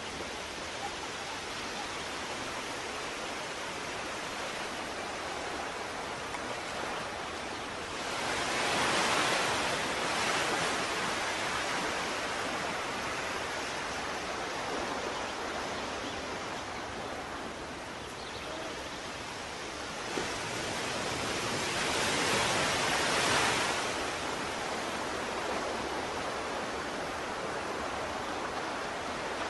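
Ocean surf: a steady wash of waves, swelling louder twice, about eight and twenty-two seconds in.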